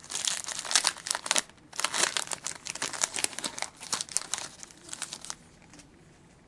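Trading card pack wrapper being torn open and crumpled by hand: irregular crinkling and tearing that stops about five seconds in.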